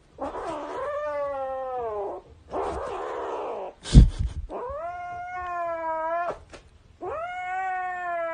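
A cat yowling: three long, drawn-out caterwauling calls, with a rougher, noisier cry between the first two. A loud thump comes about four seconds in.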